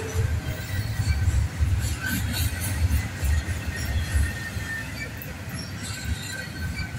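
Double-stack intermodal freight train rolling past: a heavy low rumble of the well cars on the rails with a thin, steady wheel squeal over it. The rumble eases somewhat after about four seconds.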